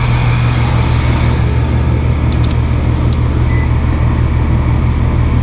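A 3-ton residential air-conditioning condenser running: a steady low hum from the compressor under the even rush of the condenser fan. A few light clicks come about two to three seconds in.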